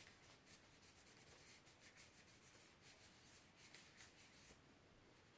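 Faint, quick rubbing strokes of a wipe over the body of a Canon PowerShot SX530 HS camera as fingerprints are cleaned off; the rubbing stops about four and a half seconds in.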